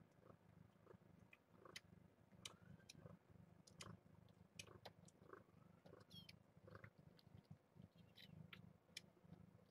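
Near silence with faint cat purring, a low pulsing hum, and scattered small clicks; a faint high squeak about six seconds in.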